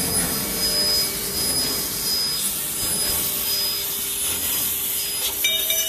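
2 kW laser tube-cutting machine running as it cuts thin stainless steel square tube: a steady, loud rushing hiss from the cutting head and machine. A short, high whine of several tones comes briefly near the end.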